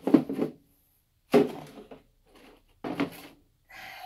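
Handling noise: four short knocks and rustles about a second apart as hand-held items are set down and picked up.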